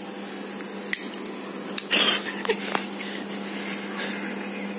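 Close-up handling noise: small clicks and rustling of a hand working a small object next to the microphone, over a steady low hum. About two seconds in comes a short breathy hiss as smoke is blown out.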